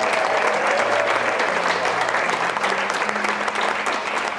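A roomful of guests applauding, a steady clatter of many hands clapping at once.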